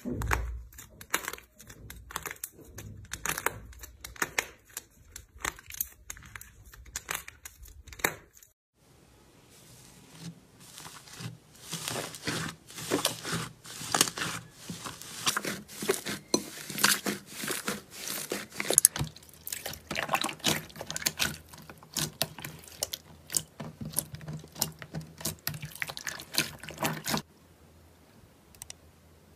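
Slime being squeezed and worked by hand, giving dense, irregular wet clicks and crackling pops. The sound changes abruptly twice, and goes quieter near the end.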